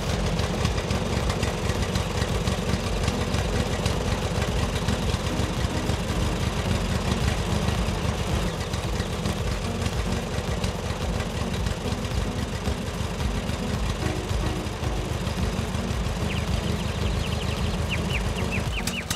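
Tractor diesel engine running steadily with a fast, even chugging beat.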